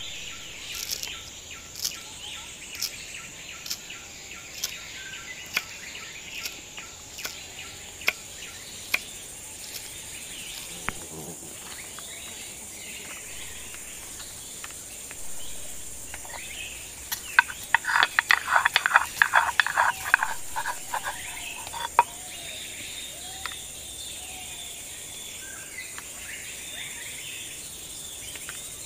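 Insects trill steadily in the background with occasional bird chirps. Sharp taps of ingredient preparation come about once a second for the first several seconds. A fast, loud run of hand-tool strikes on food follows about two-thirds of the way through.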